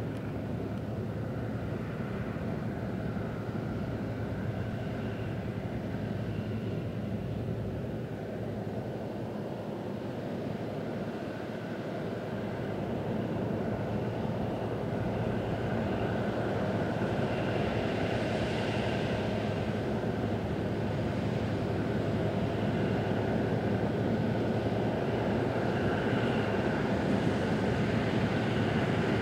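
John Deere 9650 STS combine harvesting corn: a steady drone of engine and threshing machinery with a faint whine over it, growing louder over the second half as it comes closer.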